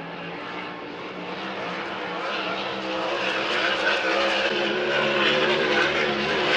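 Grand Prix-class racing hydroplane's engine running at high speed, its pitch wavering slightly as it grows louder while the boat closes in.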